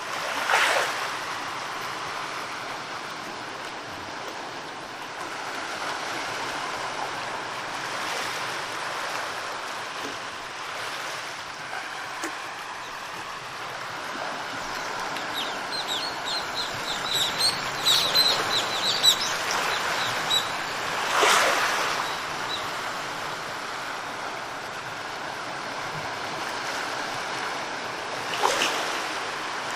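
Sea surf washing on the shore as a steady hiss that swells and falls, with brief louder surges about a second in, around two-thirds of the way through and near the end. Partway through, a bird gives a quick run of high chirps for a few seconds.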